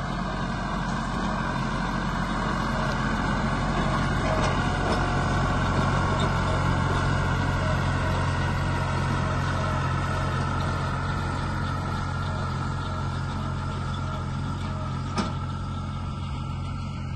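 John Deere tractor's diesel engine running steadily at working speed while pulling a fertilizer spreader across the field.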